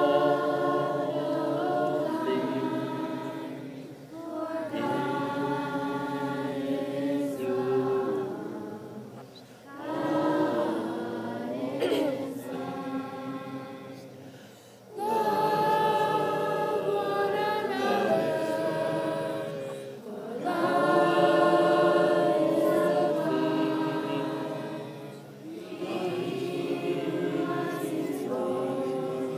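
A group of voices singing a worship song together, in sung phrases a few seconds long with short breaks between them.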